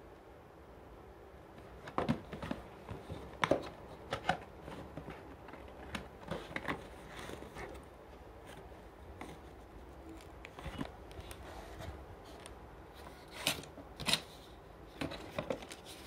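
Box packaging being handled and opened: scattered rustles, scrapes and sharp clicks, loudest about two seconds in and again near the end.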